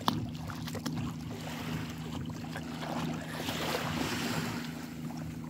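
Shallow seawater sloshing and splashing as snorkelers wade in and paddle along face-down, with wind on the microphone and a steady low hum underneath.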